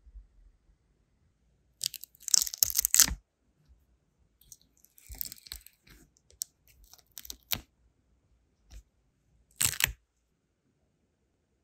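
Thin, set sealing wax crackling and tearing as a brass wax-seal stamp is pried off it. The loudest crunchy burst comes about two seconds in, a softer one around five seconds, then a few sharp single cracks and one more short burst near the end. The wax is cracking because the seal is thin.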